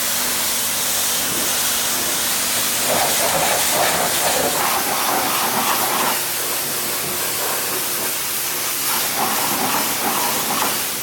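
Pressure washer lance spraying a truck tire and alloy wheel: a loud, steady hiss of the water jet on rubber and metal, with water splashing onto the concrete floor. The tone shifts now and then as the jet sweeps across the tire.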